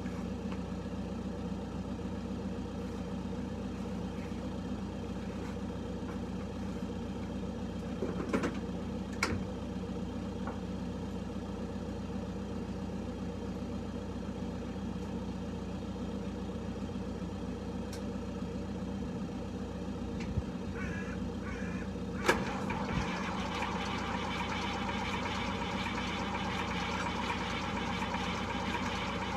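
Zetor Crystal 8011 tractor's diesel engine cold-starting: a steady low hum and a few clicks, then about three-quarters of the way in the engine catches after a sharp click and runs on at a steady idle, fuller and louder than before.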